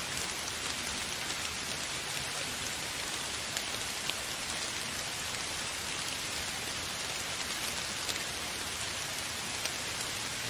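Steady rain falling, an even hiss with occasional individual drop ticks.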